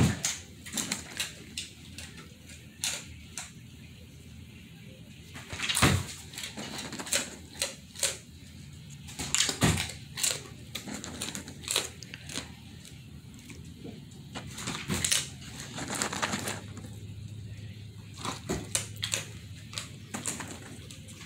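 Irregular clicks and taps from a German Shepherd moving about on a bare hardwood floor, its claws clicking on the boards, mixed with the crunch of it chewing small crunchy treats.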